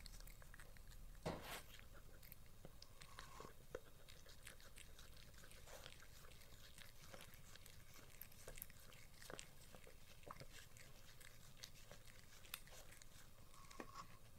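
West Highland white terrier biting and chewing crisp cucumber slices: scattered sharp crunches, the loudest about a second in, then quieter, sparser chews.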